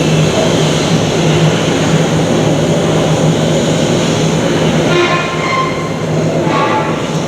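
Thameslink Class 700 Desiro City electric train running through the station: a loud, steady rumble and hum. Two short pitched tones sound about five and six and a half seconds in.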